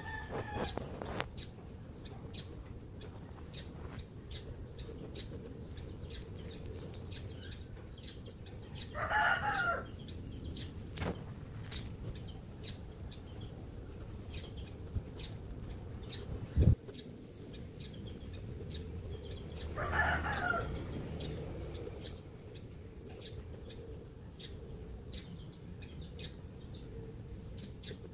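Bird calls in the background: a short pitched call at the start, then two louder calls about a second long, about nine and about twenty seconds in. A single sharp thump falls between them, over a faint steady background hum.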